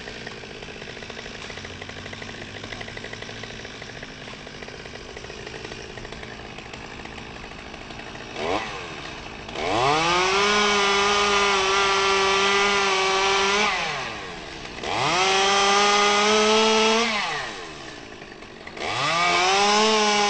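Chainsaw idling for about eight seconds, then running at full throttle three times, each spell rising quickly in pitch and holding steady for a few seconds while cutting, dropping back to idle in between. The saw is cutting the sink, the notch made in the stem before felling a section.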